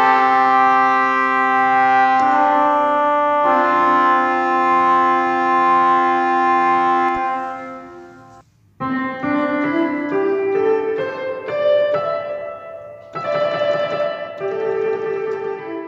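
Keyboard music: sustained chords that fade out about halfway through, then, after a brief break, a melody of shorter piano-like notes moving up and down.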